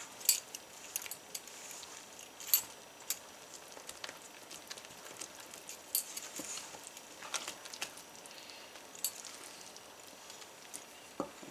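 Silicone spatula stirring thick red velvet cake batter in a stainless steel mixing bowl: soft scraping with scattered light clicks against the bowl every second or two.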